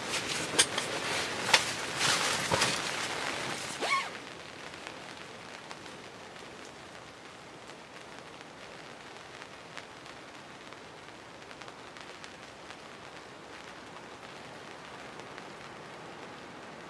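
Rain falling, at first with dense pattering and several sharp knocks, then, from about four seconds in, a quieter steady patter with only an occasional drip.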